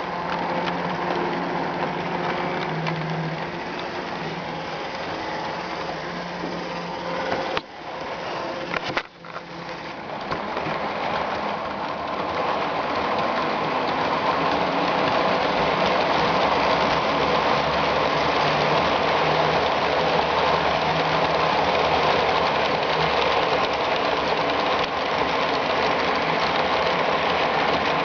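HO-scale model trains running on the layout: a steady whir of small electric motors and wheels on the track. There is a brief dropout about eight seconds in, and after it the whir is a little louder and steadier.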